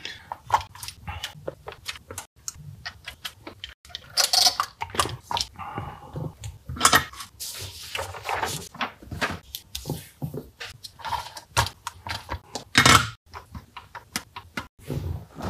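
Irregular clicks, taps and rustles of a circuit board and small parts being handled on a workbench, as a transistor is fitted into a Roland TR-606 board and the board is turned over and set down.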